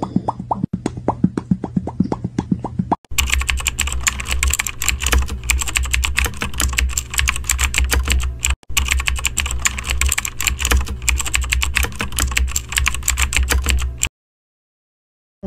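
A rapid string of short mouth pops, the Pop Cat meme sound, for about the first three seconds. Then fast typing on a computer keyboard, a dense clatter of keys that cuts off abruptly about a second before the end.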